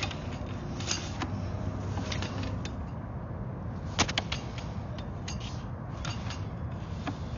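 Scattered clicks and knocks over a steady low rumble, with the sharpest knock about four seconds in, as a sewer inspection camera's push cable is fed down a drain line.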